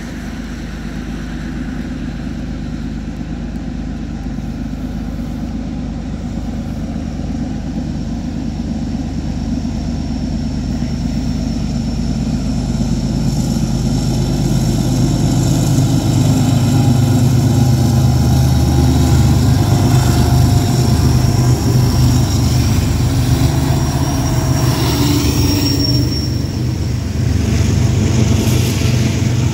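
Diesel locomotive-hauled train drawing close, its low engine and wheel rumble growing louder over the first half and then holding steady and loud as it goes by, with a few thin high tones in the second half.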